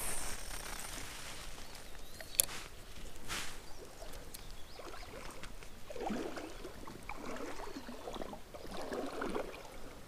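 Quiet riverside ambience while a spinning rod and reel are handled, with one sharp click about two and a half seconds in and soft, irregular handling sounds in the second half.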